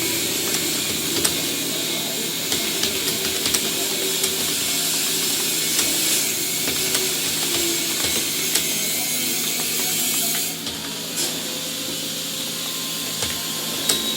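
Computer keyboard keys clicking irregularly, a few strokes a second, under a loud steady hiss that eases slightly about ten seconds in.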